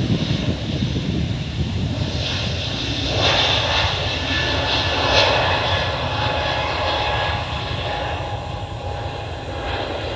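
Airliner's jet engines at take-off power as it accelerates down the runway: a steady, loud roar with a thin whine that drops in pitch partway through. The roar swells a few seconds in, then slowly fades as the plane pulls away.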